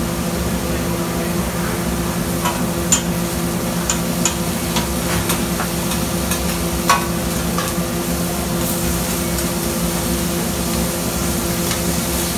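Restaurant room noise: a steady hiss over a low machine hum, with scattered light clicks and clinks, the sharpest about seven seconds in.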